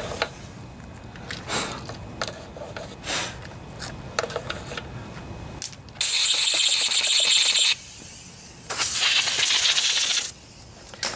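Light rubbing and small clicks as a rag wipes out the dirty primer-bulb hole in a small-engine carburetor housing. Then come two loud hissing sprays, each about a second and a half long, blasting the hole clean.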